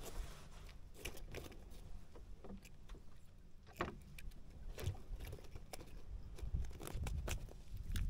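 Low, uneven rumble with scattered light clicks and knocks of fishing gear being handled aboard a small boat. The loudest knock comes a little under four seconds in, and the rumble grows louder near the end.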